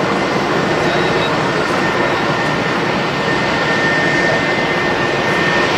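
Jet engines of a taxiing airliner: a steady, loud rushing noise with a thin high whine running through it.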